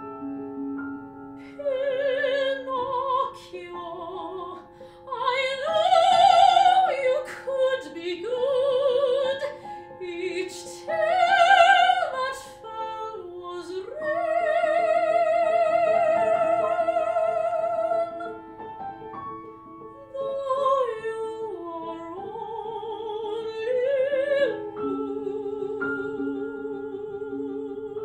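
Soprano singing an operatic aria with vibrato, accompanied on grand piano. She reaches high climactic notes twice and holds one long note in the middle. The voice stops near the end while the piano plays on.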